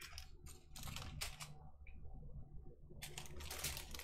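Small plastic bags of diamond painting drills being handled: faint rustling and crinkling of the plastic with small clicks of the drills inside. The crinkling gets busier about three seconds in.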